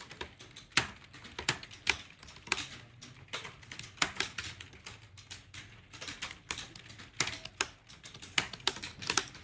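Someone typing at speed on a keyboard: sharp key clicks, several a second at an uneven pace.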